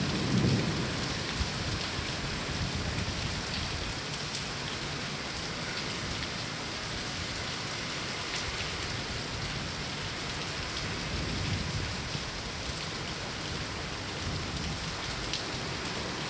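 Heavy rain falling in a steady hiss, with low thunder rumbles just after the start and again about eleven seconds in.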